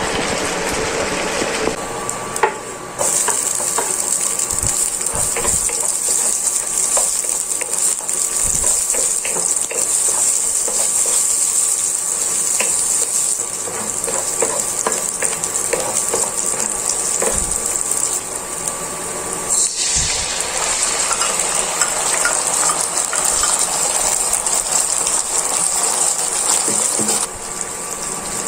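Chopped onion sizzling in hot oil in a nonstick frying pan, with scattered clicks and scrapes from a wooden spatula stirring it. A faint steady hum runs underneath. The sizzle breaks off briefly at a couple of edits.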